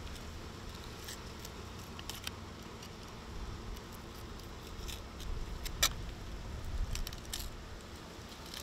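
Quiet low rumble with a handful of sharp clicks and ticks as a fillet knife and hands work a yellowtail snapper on a fish-cleaning table.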